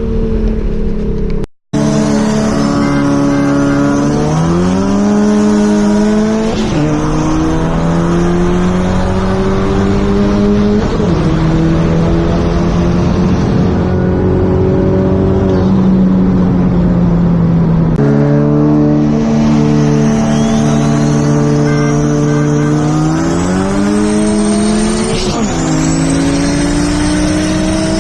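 Rear-mount single-turbo Nissan 350Z's V6 at full throttle, accelerating hard through the gears: engine pitch climbs and drops at each shift, with a rising turbo whistle over it. It cuts out briefly near the start, and partway through a fresh run begins from low revs.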